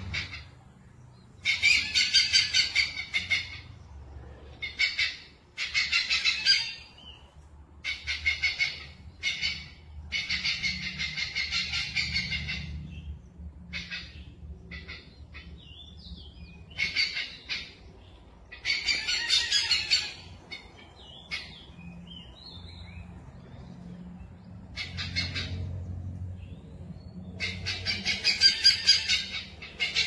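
Bird calls: repeated bursts of rapid, high chattering, each lasting a second or two with short gaps between, over a low steady hum.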